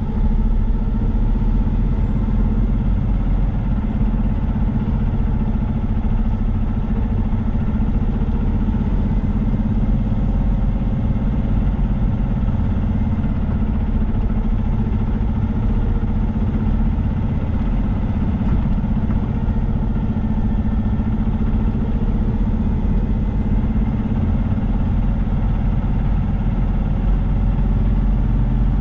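Semi truck's diesel engine running while the truck drives, heard from inside the cab: a steady low drone that holds the same pitch throughout.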